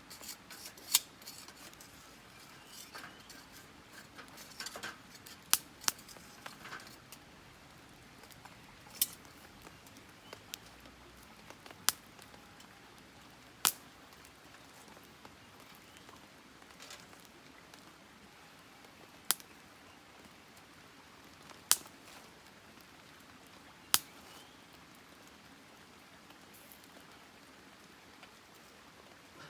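Campfire burning: sharp, single pops of burning wood at irregular intervals of a few seconds, over a low steady hiss.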